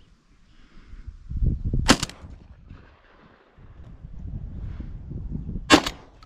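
Two sharp cracks, about two seconds and six seconds in, over the low, uneven rumble of footsteps on tilled soil and wind on the microphone.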